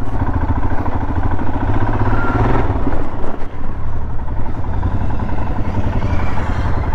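Motorcycle engine running at low revs while the bike is ridden slowly over a dirt track. The revs rise a little about two seconds in and dip briefly a little after three seconds.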